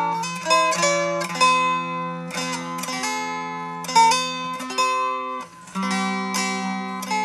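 A four-string fretted instrument being played: plucked notes and chord shapes ringing out about every half second over a held low note, with a brief drop in sound about five and a half seconds in.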